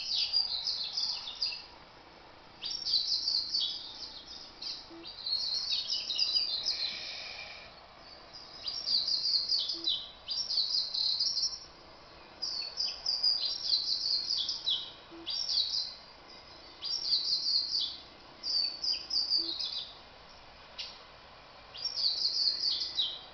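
Double-collared seedeater (coleiro) singing: high, rapid twittering phrases of one to two seconds each, repeated again and again with short pauses between them.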